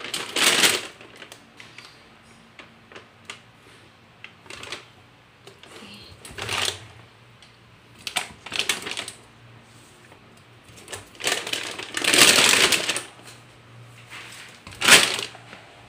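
A thin plastic bag rustling and crinkling in several separate bursts as hands dig through whole cutlass fish inside it, the longest burst a little past the middle.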